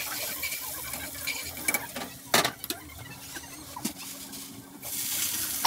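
Cooking clatter: a few sharp clinks and knocks of a spatula and utensils against a wok and counter, with a rise in rustling hiss near the end.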